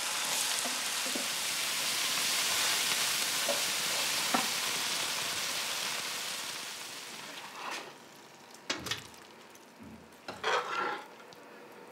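Onions, peppers and tomato sauce sizzling in a frying pan while being stirred with a wooden spatula; the sizzle fades away after about seven seconds, and a few short scrapes and knocks of utensils on the pan follow near the end.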